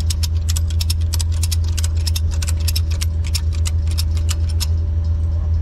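Tow truck engine idling steadily under a quick run of sharp metallic clicks, about six a second, that stop shortly before the end.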